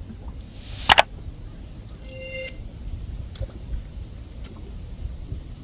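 A brief, loud, sharp noise about a second in, then a single electronic beep lasting about half a second, from the boat's electronics, over a steady low rumble.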